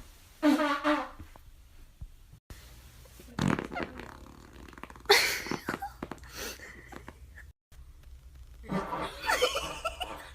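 A string of farts, some with a clear pitch, the loudest about half a second in and about five seconds in, with abrupt cuts to silence between them.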